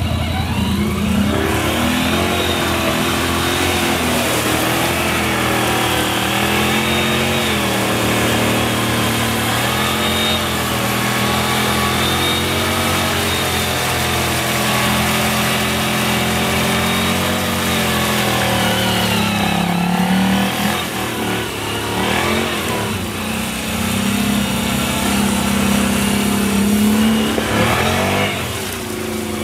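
Can-Am Outlander 1000 XT ATV's V-twin engine running under way, its pitch rising and falling again and again as the throttle is worked.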